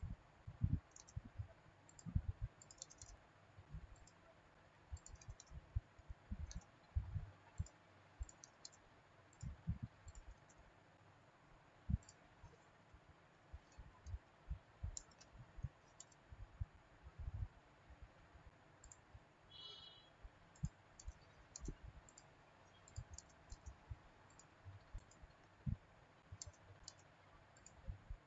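Irregular, fairly faint clicks of a computer mouse and keyboard keys being pressed while drafting in CAD software, with soft low thumps between the sharper ticks.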